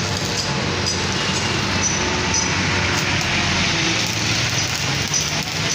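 Stick (arc) welding: the arc crackling and sizzling steadily as the electrode is run, with a steady low hum underneath.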